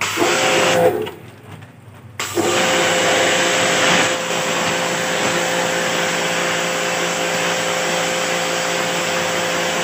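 Travino portable high-pressure washer's induction motor running with a steady hum while its jet sprays water through an air-conditioner evaporator coil. It stops for about a second near the start, when the trigger is released, then starts again and runs steadily.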